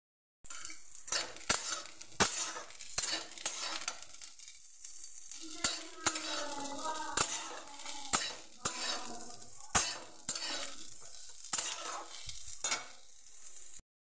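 Pieces of jackfruit and potato sizzling in hot oil in a metal kadai while a metal spatula stirs them, scraping and knocking against the pan at an uneven pace, about once or twice a second.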